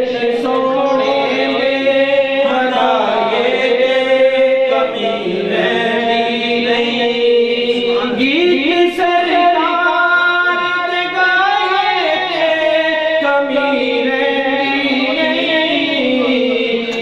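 A man singing a devotional song unaccompanied into a microphone, holding long notes that glide and bend between pitches.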